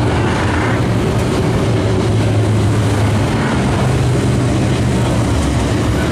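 Dirt modified race cars' V8 engines running at racing speed around the track: a loud, steady engine drone.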